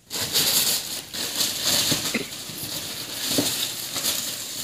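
White tissue paper rustling and crinkling as a leather ankle boot is handled in a cardboard shoebox, with a few knocks.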